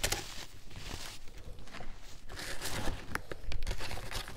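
Hands squeezing and crumbling clumps of baking soda in a palm crush: a crisp, crackling crunch of many small snaps. A louder flurry of crunching comes about two and a half seconds in and eases near the end.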